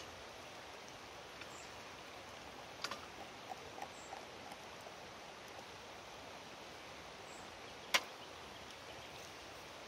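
Frying pan knocking against a portable gas camp stove as hot oil is swirled in it, with a light knock about three seconds in and a sharp clack at about eight seconds as the pan is set down on the burner. A steady faint hiss runs underneath.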